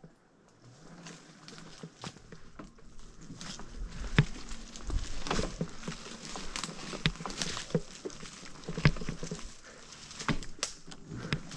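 Vector Vortex e-bike riding over rough ground: a dense crackle of tyres with scattered knocks and rattles from the bike over bumps. It grows louder over the first few seconds.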